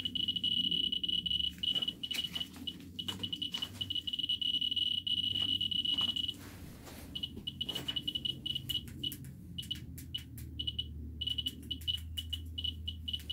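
Ludlum Model 3 Geiger counter clicking very fast beside uranium ore, its clicks running together into a steady high chirping. About six seconds in it breaks off briefly, then comes back as a dense crackle of clicks under the same chirp.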